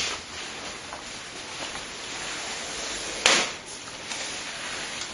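Quiet handling noise from hands working among computer parts and cables, with one sharp clack about three seconds in.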